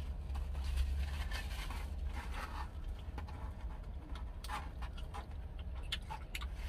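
Close-up mouth sounds of eating a barbecue chicken wing: biting and chewing with scattered wet smacks and clicks, over a steady low hum.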